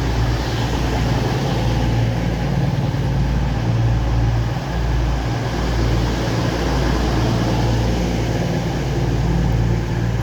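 Diesel engines of a Class 222 Meridian multiple unit idling at the platform: a steady low running note.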